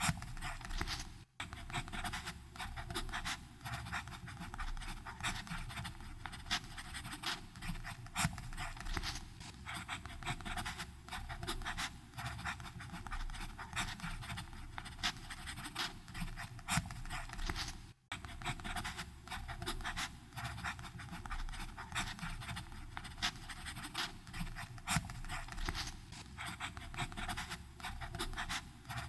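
Fountain pen nib scratching across paper in continuous, irregular writing strokes, with two very brief breaks, about a second in and again about halfway through.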